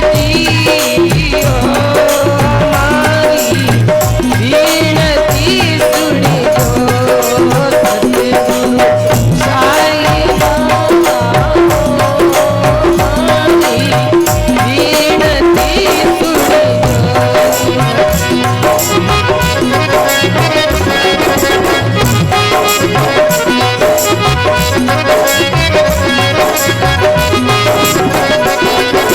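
Rajasthani folk devotional music with no words: a wavering melodic lead over a steady hand-drum beat and continuous jingling, rattle-like percussion.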